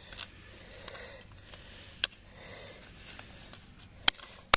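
Scattered sharp clicks and taps of broken phone parts, cracked glass and plastic, being handled and set down on a tree stump, with two louder clicks near the end.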